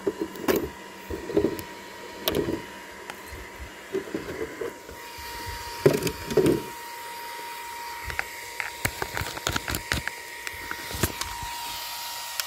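Footsteps on gravel, a dull thud about once a second, then a run of short clicks and knocks as the body clips are pulled and the shell is lifted off a 1/10 electric touring car's chassis.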